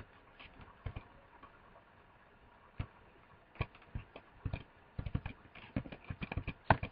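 Clicks of a computer keyboard and mouse: a few scattered clicks, then a quick, irregular run of clicks in the second half.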